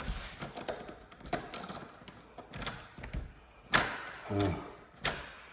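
Scattered light taps and knocks, with two sharper clicks, one a little past the middle and one near the end, and a brief murmur from a voice between them.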